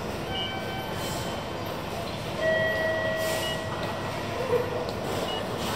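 Steady background noise of a railway station, with a few short electronic tones from the ticket machines or station, the loudest starting about two and a half seconds in and lasting about a second.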